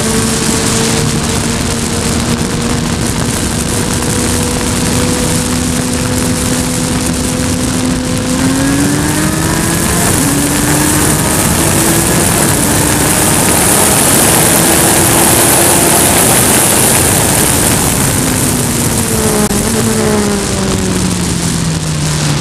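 Open-wheel formula race car engine under hard throttle, heard onboard with heavy wind rush. The engine note climbs, breaks briefly about ten seconds in, and stays high with strong wind noise through the middle. Near the end the pitch falls steadily as the car slows for a corner.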